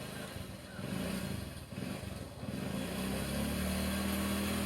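A motorcycle engine running steadily, its pitch rising slightly about three seconds in and then holding.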